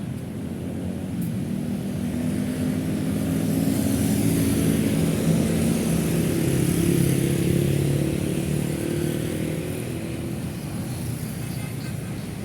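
Busy city road traffic: a mix of cars and motorbikes going by, with one vehicle's engine hum growing louder to a peak about halfway through and then fading as it passes.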